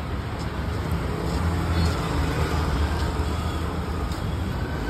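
A steady low rumble of street noise, with a hiss spread over the higher sounds and no distinct events.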